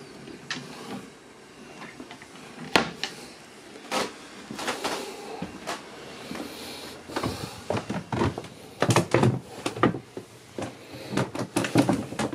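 A cupboard door is pushed shut, giving a few sharp knocks early on. From about seven seconds in comes a run of quick knocks and thumps from footsteps on a wooden cabin floor.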